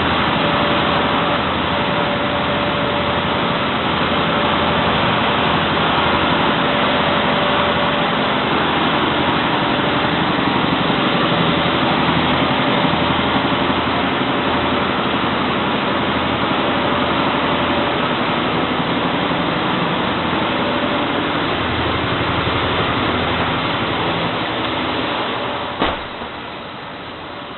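Dairy machinery running with a loud, steady mechanical noise, a faint steady tone, and a low pulsing underneath. The noise eases off a little in the last few seconds, with one sharp knock about 26 seconds in.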